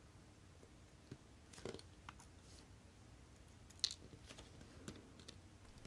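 Faint clicks and light taps of brass tweezers working on a Citizen caliber 8100A chronograph movement as a small wire part is lifted out and set down; a handful of separate ticks, the sharpest about four seconds in.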